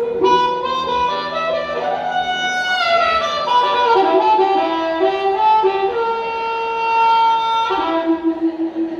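Harmonica solo amplified through a stage PA: long held notes that change pitch several times, with bent notes sliding down in pitch about three seconds in.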